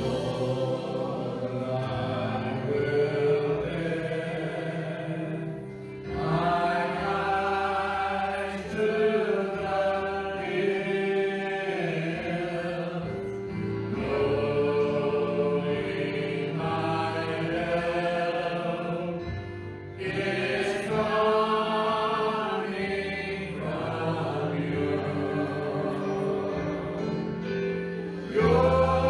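A small worship team of mixed voices singing a worship song together into handheld microphones over sustained instrumental accompaniment, line by line with short breaks between phrases.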